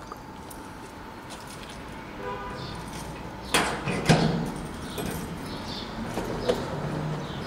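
A bunch of car keys jangling and clinking in a hand, loudest in a couple of sharp clatters a little past the middle and once more near the end. Birds chirp faintly in the background.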